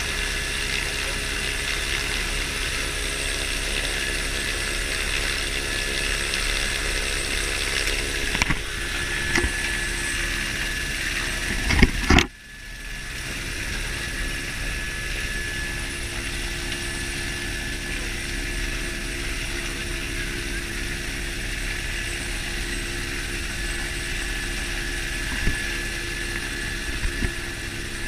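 Helicopter turbine engine and rotor running steadily, heard from inside the cabin while it sits on the snow. A few knocks come about eight to twelve seconds in, then the sound drops suddenly and swells back over a couple of seconds.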